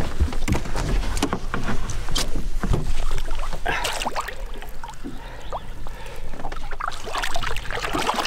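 Lake water splashing and sloshing against the side of a boat as a muskie is released by hand, with scattered knocks and clicks. A burst of splashing about four seconds in as the fish kicks in the water.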